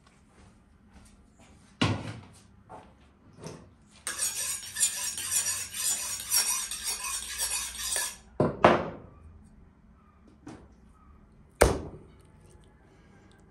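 Kitchen knife honed on a sharpening steel: a run of quick metallic scraping strokes, a few a second, for about four seconds. Sharp knocks come before and after it, the loudest near the end.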